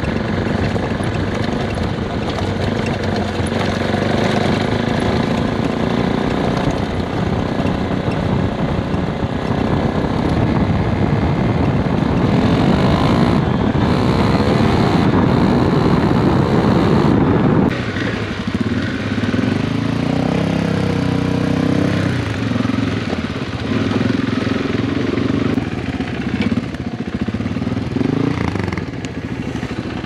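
Adventure motorcycle riding along a gravel road, the engine note mixed with wind and tyre rush on the bike-mounted microphone. About eighteen seconds in the rush drops away and the engine settles to a lower, steadier note as the bike slows.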